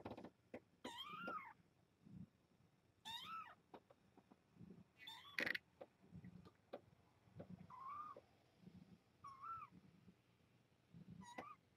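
Young kittens, about three and a half weeks old, mewing: about six short, high-pitched mews, each rising and then falling, spaced a second or two apart. Faint light clicks come between them.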